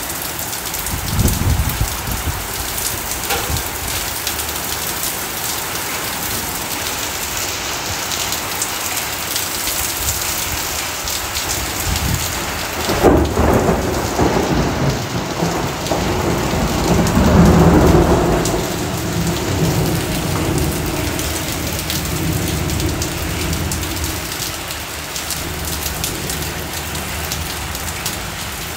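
Heavy rain mixed with small hail pelting a flooded concrete driveway as a steady hiss. Thunder rumbles briefly about a second in, then cracks sharply about halfway through, followed by a long rolling rumble that swells and fades a few seconds later.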